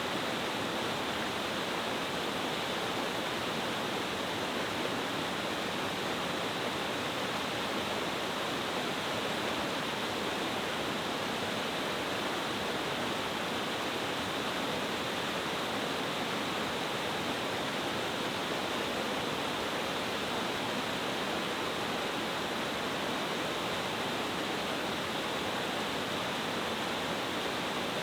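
A multi-tiered stream cascade waterfall: water falling powerfully over several steps, a steady, unbroken rush.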